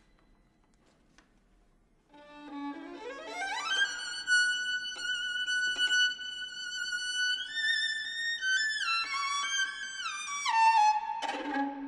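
Solo violin: after about two seconds of near silence, a low held note sounds while a second voice slides up in a long glissando to a high sustained note. The high line then steps back down in a descending line, and a new low note enters near the end.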